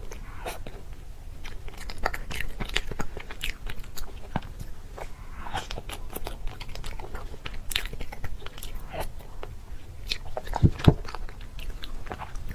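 Close-up crunchy biting and chewing: a string of sharp crunches, with two louder crunches close together near the end.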